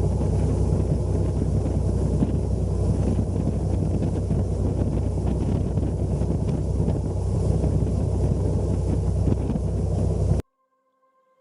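Speedboat engine running steadily, with heavy wind noise on the microphone; cuts off suddenly about ten seconds in.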